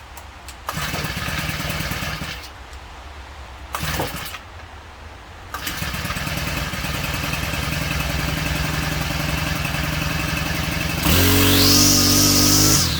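Husqvarna 324L string trimmer engine starting on a newly fitted carburetor: it catches and runs for about a second and a half, dies, fires briefly again around four seconds in, then catches at about five and a half seconds and idles steadily. Near the end it is throttled up to a high rev, drops for a moment, and revs up again.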